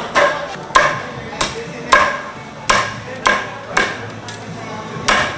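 Fishmonger's cleaver chopping fish on a wooden block, a run of sharp chops roughly two a second, each with a brief ring.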